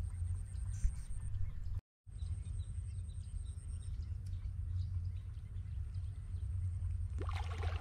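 Outdoor wind rumbling on the microphone, with a brief dropout to silence about two seconds in. A short, sharper call-like sound comes near the end.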